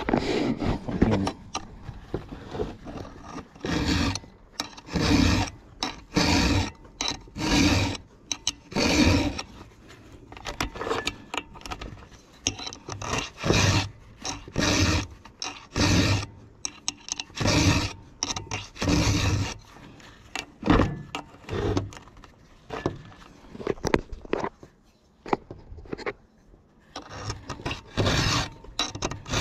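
Round 5.5 mm chainsaw file rasping across the cutters of a .404 semi-chisel chain in steady push strokes, about one a second, in runs of several strokes separated by short pauses: hand-sharpening the chain.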